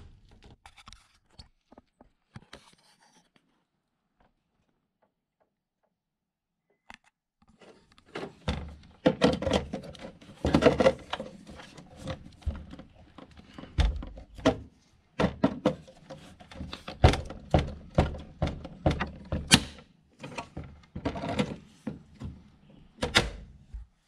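Knockout in a sheet-steel electrical box being punched and worked loose with pliers: a long run of sharp metallic knocks, clanks and rattles that starts about a third of the way in, after a few faint ticks and a quiet gap.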